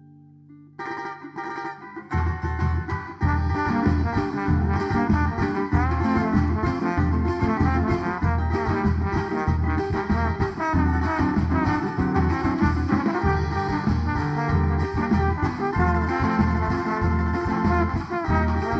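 Band starting an instrumental introduction: a few notes about a second in, then the full band with a strong, steady bass beat coming in about two seconds in.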